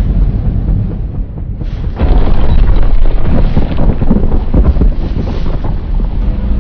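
Custom giant-monster sound effect: a loud, deep rumbling noise that jumps sharply louder about two seconds in.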